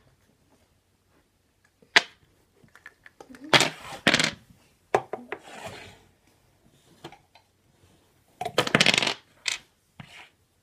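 Dice rattling and clacking in a plastic dice-stacking cup on a table. There is a sharp clack about two seconds in, then several short rattling bursts, each under a second long.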